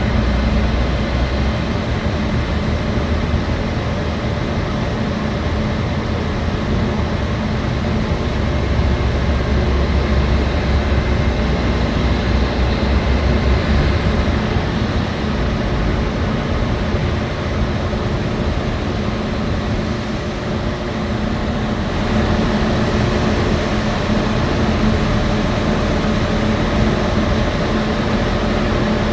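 A train standing at a station platform, its engine and onboard equipment running with a steady hum and low rumble; the rumble swells for several seconds partway through.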